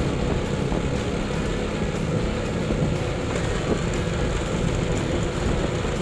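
Small motorbike engine running steadily while riding over a dirt track.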